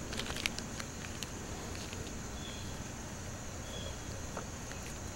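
Light clicks and taps from handling a pocket knife and polishing cloth at a workbench, bunched in the first second or so, with two short high chirps a few seconds in, over a steady background hum.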